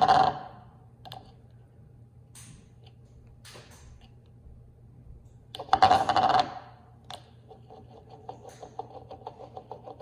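A glass tumbler spinning on its base on a granite countertop, rattling fast with a ringing tone, after a parrot pushes it with its beak. A loud spin dies away just after the start, a second loud one lasts about a second around the middle, and a fainter spin starts near the end. A few single taps fall between the spins.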